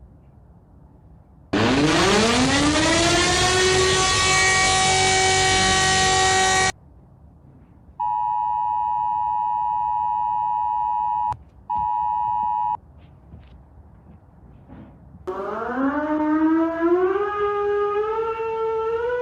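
Emergency alert sounds in sequence. First, a siren tone sweeps steeply up and holds steady for about five seconds. After a pause comes the EAS attention signal, two steady tones sounding together; it breaks off briefly and comes back. Near the end, a siren wail rises in pitch in steps.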